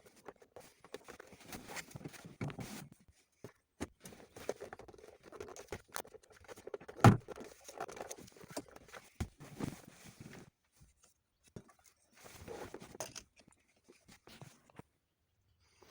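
Hands and tools working on car parts during disassembly: scattered clicks, rustling and light knocks of plastic and metal pieces being handled, with one sharp knock about seven seconds in.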